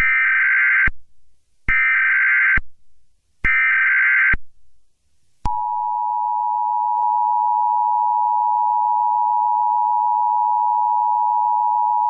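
Emergency Alert System tones: three short SAME header data bursts, each just under a second. About five seconds in, the steady two-tone EAS attention signal begins.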